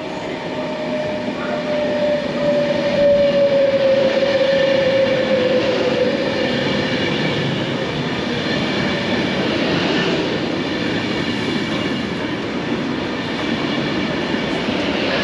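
Passenger train passing at speed on the main line: a steady rush of wheels on rail that builds over the first few seconds, with a whine that falls slightly in pitch as it goes by.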